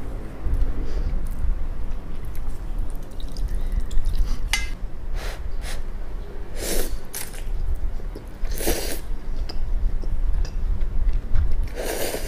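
Close-up slurping and chewing of instant ramyun noodles in broth: several short slurps in the second half, the loudest three spaced about two seconds apart, over a steady low rumble.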